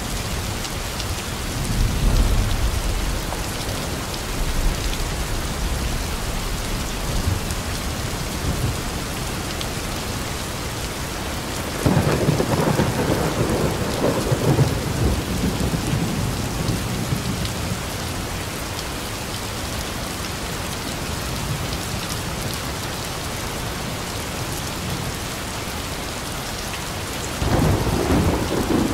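Heavy rain falling steadily, with thunder. There is a low rumble about two seconds in, a sudden clap about twelve seconds in that rolls away over several seconds, and another clap near the end.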